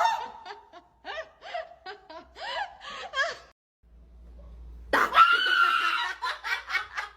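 A person laughing in short, choppy bursts, then a louder, higher laughing outburst about five seconds in.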